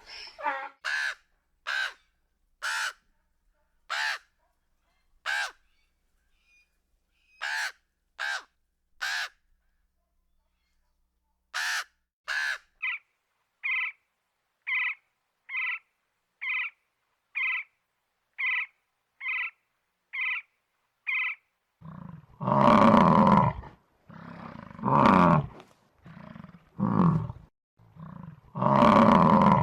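A bird gives a long series of short, harsh calls: about one a second at first, with a pause, then a faster, even run of about two a second. From about three-quarters of the way in, a big cat roars repeatedly, loud and deep, several long roars in a row.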